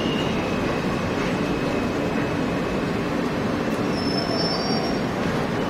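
New York City subway car running through a tunnel, heard from inside the car as a steady rumble of wheels on rails. Faint high squeals from the wheels come in about four seconds in.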